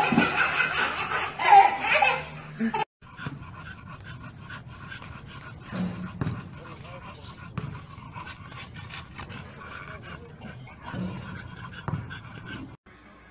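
Laughter for the first three seconds, cut off suddenly, then quiet dog panting with soft, irregular breaths.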